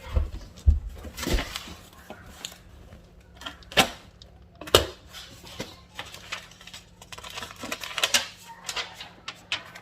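Packaging supplies being handled and unpacked: irregular clicks, knocks and taps with light rustling, a few sharper knocks standing out.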